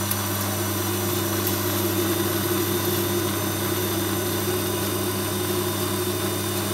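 Small metal lathe running with a steady hum while a tungsten carbide insert takes a facing cut toward the centre of a hard high-tensile steel spigot. This is a test cut to check that the insert sits exactly on centre height.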